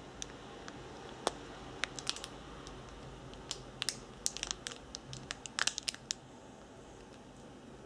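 Clear plastic bags of square diamond-painting drills crinkling as they are handled, in scattered sharp crackles that are busiest about four to six seconds in.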